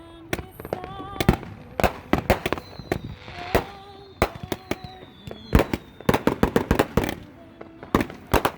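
Fireworks and firecrackers going off in rapid, irregular succession, dozens of sharp bangs and pops. A whistling tone glides down in pitch about three seconds in.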